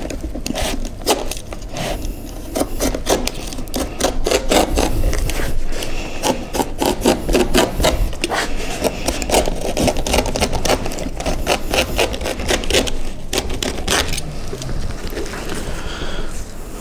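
Utility knife blade cutting along the edge of a green, part-cured chopped strand mat fibreglass laminate: a continuous run of rapid, irregular ticks and scrapes as the blade slices through the resin-stiffened glass fibres.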